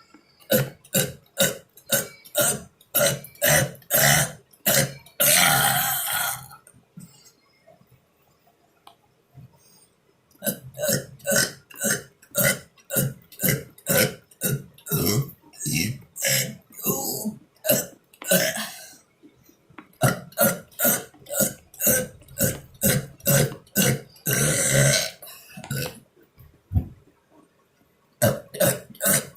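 A man burping over and over: runs of short, quick burps, about three a second, broken by pauses of a few seconds. A long drawn-out burp comes twice, near the end of the first run and in the third. A new run starts near the end.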